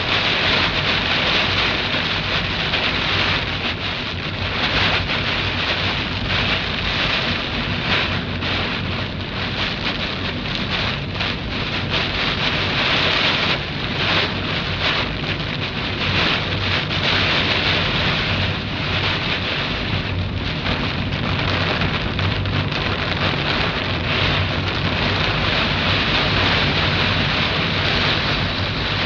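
Heavy rain pouring down steadily during a thunderstorm, a dense even hiss.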